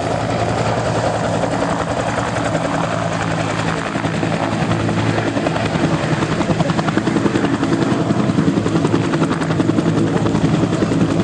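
Radio-controlled model helicopter flying, its engine running steadily under a fast rotor chop that grows louder in the second half.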